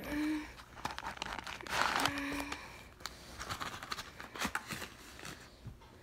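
Packaging rustling and crinkling as a handcuff box and its paper wrapping are opened and handled, loudest near the start and again around two seconds in, then a few small clicks and rustles.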